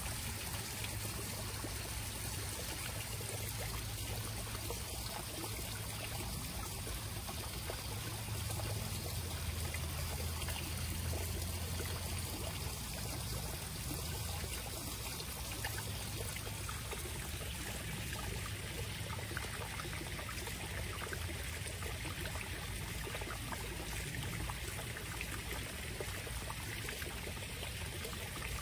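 Steady trickling and splashing of a backyard koi pond's water features: a small waterfall over rocks and a fountain spout pouring into the pond.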